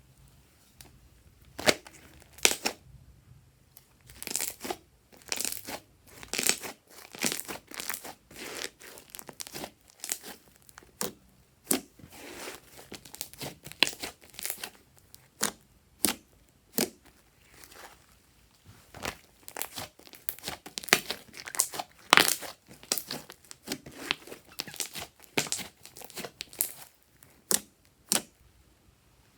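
Slime being stretched and squeezed by hand, giving off irregular sticky crackles and tearing sounds, several a second with short pauses.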